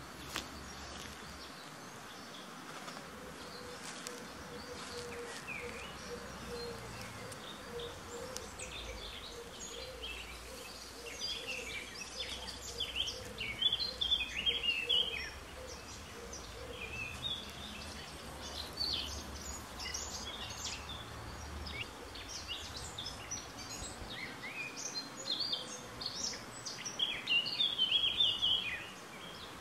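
Small birds chirping and singing, with louder bursts of song about halfway through and again near the end, over a faint steady hum.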